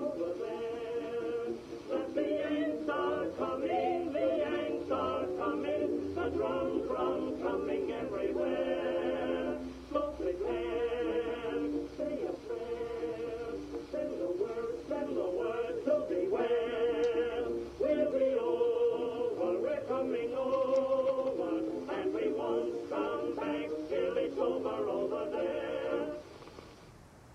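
A recorded song: singing voices over accompaniment, with a narrow, old-recording sound. The music stops about 26 seconds in, leaving faint hiss.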